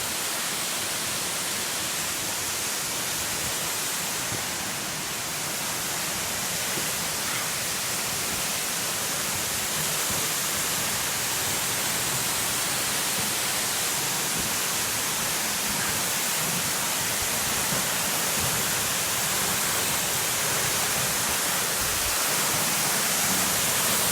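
Small forest waterfall rushing steadily, growing a little louder toward the end.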